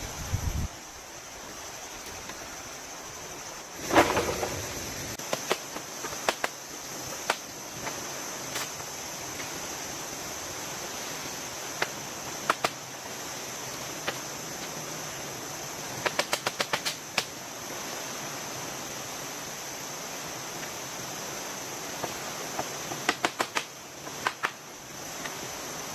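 Steady rain hiss with scattered sharp taps of drops on a plastic tarp, some in quick runs. There is a louder rustle of the tarp about four seconds in.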